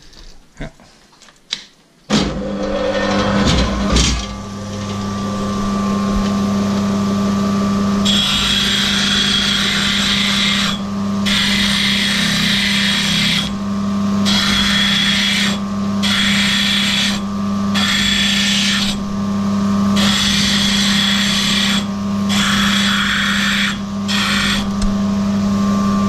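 Opal-grinding machine switching on about two seconds in and running with a steady motor hum. From about eight seconds, a hissing grind as opal pieces are pressed against the water-cooled grinding wheel, lifted off about seven times for a moment.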